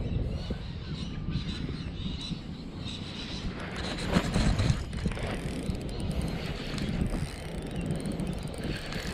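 Steady rumble of wind on the microphone over open water, with a brief louder burst of noise about four seconds in.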